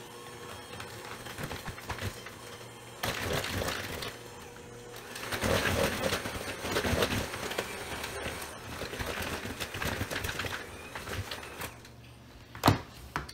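Electric hand mixer running with a steady motor hum, its beaters churning flour into a butter, egg and brown-sugar cookie dough and clattering and scraping against the plastic bowl, louder from about three seconds in. A sharp knock near the end.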